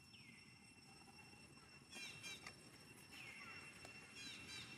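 Faint high-pitched animal calls: a short falling whistle at the start, then two quick runs of short falling chirps, about two seconds in and again from about three seconds. A faint steady high whine runs underneath.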